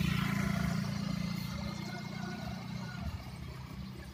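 A small motor scooter's engine running as it passes and moves away, its steady low hum fading over about three seconds.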